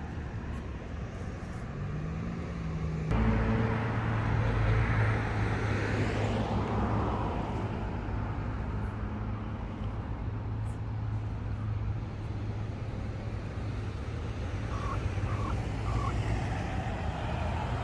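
Road vehicle running, with a steady low hum and road noise that gets suddenly louder about three seconds in. Three short beeps come near the end.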